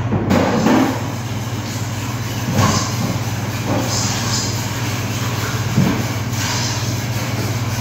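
A steady low machine hum with a rushing noise, broken by several short knocks and clatters.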